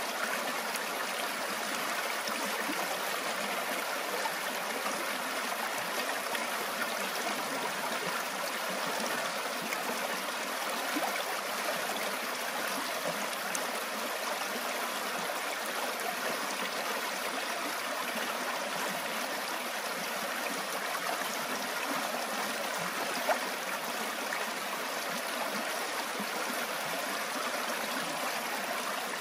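Shallow creek water rushing fast over rocks, a steady close-up rush with splashing and gurgling.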